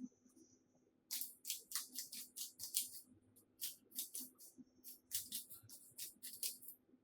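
3x3 Rubik's cube being turned quickly by hand: rapid runs of light plastic clicks as the layers snap round, several a second, with short pauses between runs.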